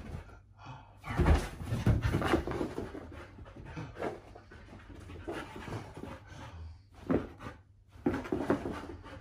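Siberian husky panting hard in quick, irregular breaths, with a few dull thumps from her moving about, loudest about a second in.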